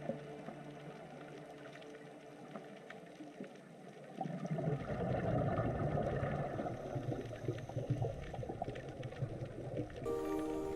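Water noise: a few seconds of faint hiss, then from about four seconds in a louder, dense rumbling wash of water that runs on until music takes over near the end.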